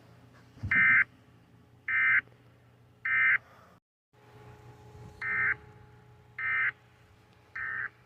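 Emergency Alert System end-of-message data bursts: three short, harsh digital bursts about a second apart, a brief cut to silence, then three more, marking the end of the warning.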